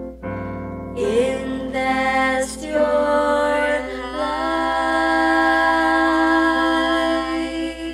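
Two female voices sing a gospel duet over a keyboard accompaniment. They finish on a long held note in harmony that stops near the end.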